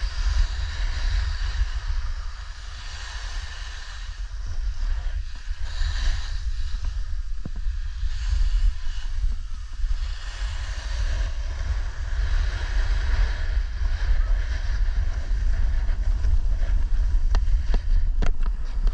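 Wind buffeting the microphone in a heavy, gusty rumble over a steady hiss of a snowboard or skis sliding on snow, with a few sharp clicks near the end.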